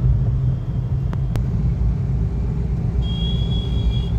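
Steady engine and road rumble heard from inside a moving car at night. Near the end a high-pitched horn sounds steadily for about a second.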